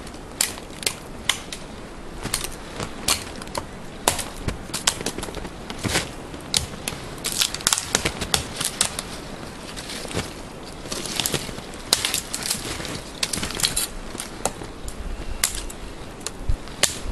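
Dry dead wood cracking and snapping as small branches are broken off a dead tree: a long run of irregular sharp cracks, several a second at the busiest.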